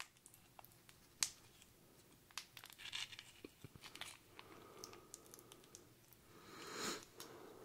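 MRE strawberry jam packet being torn open and handled: faint crinkling and rustling of the packet with scattered small clicks, a sharp click about a second in and a longer rustle near the end.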